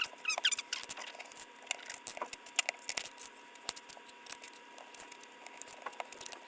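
Small plastic LEGO pieces clicking and clattering as they are handled and pressed together, with a few short plastic squeaks near the start.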